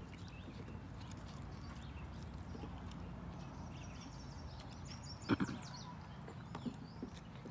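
Quiet park ambience with a steady low hum and faint, high bird chirps, broken by one sharp knock at the table about five seconds in and a couple of lighter clicks after it, from people eating at a picnic table.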